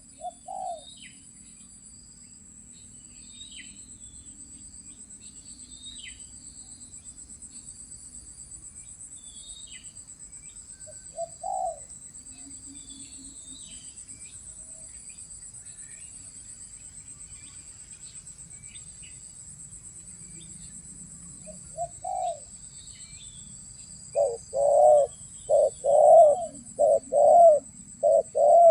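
Spotted doves cooing: single coos now and then, then a quick run of louder coos near the end. Under them runs a steady high insect drone, with scattered chirps of small birds.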